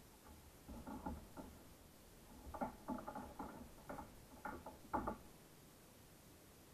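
Faint, irregular small clicks and knocks from fishing gear being handled aboard a kayak. They come in clusters about a second in, around three seconds and again near five seconds.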